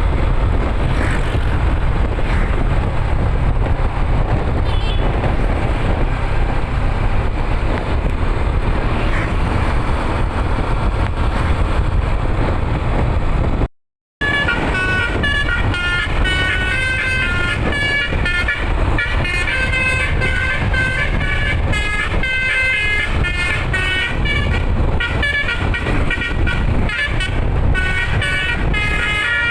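Bus engine and road noise for about the first half. After a brief break, the bus's electric telolet horn set plays a tune of quickly changing notes over the engine.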